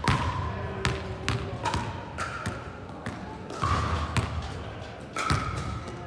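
Basketballs bouncing on a sports hall floor: about ten sharp, irregular bounces, each with a brief ringing tone and an echo from the large hall.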